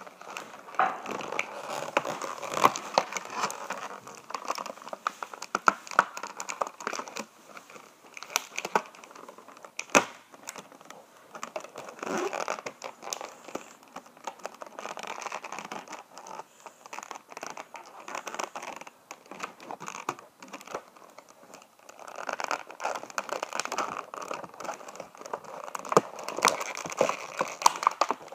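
Clear plastic toy packaging crinkling and rustling as a figure is unwrapped and handled, with scattered small clicks and one sharper snap about ten seconds in.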